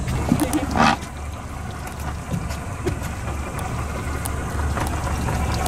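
Boat engine idling, a steady low hum, with one brief sharper noise just under a second in.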